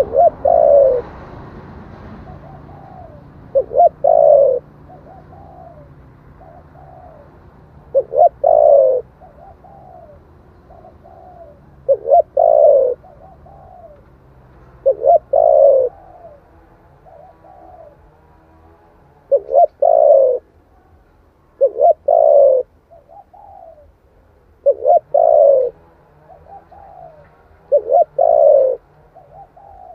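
Spotted dove cooing: a repeated phrase of two short notes and a longer falling coo, about every three to four seconds. It is a recording of a lure call, used to draw wild doves in.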